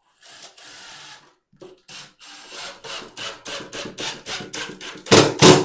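Cordless drill driving a screw through the cabinet into the wall: a quick run of rasping, knocking strokes about five a second, ending with three louder ones as the screw seats.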